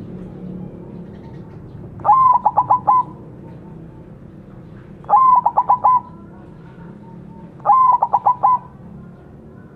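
White zebra dove (perkutut) singing three song phrases about two and a half seconds apart. Each phrase is about a second long: a rising opening note, then a quick run of about five short coos.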